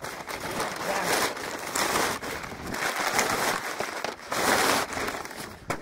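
Paper sack of seed corn rustling and crinkling as it is handled close by, in about four swells.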